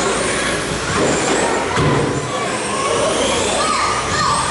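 Radio-controlled touring cars racing: a mix of small electric motors whining, rising and falling as the cars speed up and brake.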